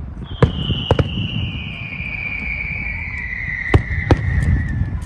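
Fireworks: a long whistling firework sliding slowly down in pitch for about four and a half seconds, with four sharp bangs, two near the start and two near the end, over a low rumble.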